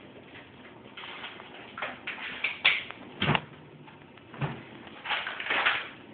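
A cat getting at a plastic cat-treat pouch: a few sharp knocks and two dull thumps about a second apart in the middle as it moves about and jumps down from the counter, then the pouch crinkling as the cat bites and paws at it.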